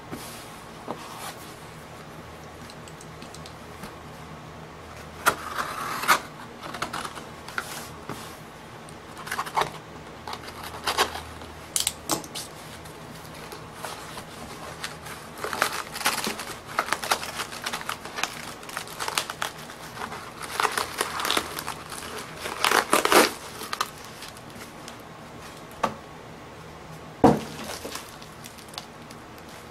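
Cardboard mailing box being handled and opened with gloved hands: irregular scrapes, rustles and crackles of cardboard and packing, then the crinkle of bubble wrap as a wrapped 10-ounce silver bar is lifted out. A single sharp knock stands out near the end.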